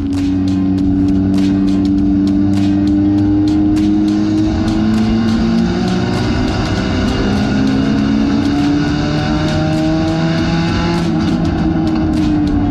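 Front-wheel-drive race car's engine heard from inside the cabin, held at high revs on track, its pitch rising and falling slowly through the turns, with many short sharp clicks over it.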